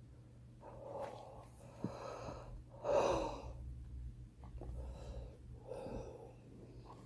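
A heavy smoker breathing with a wheeze: several drawn breaths, the loudest about three seconds in.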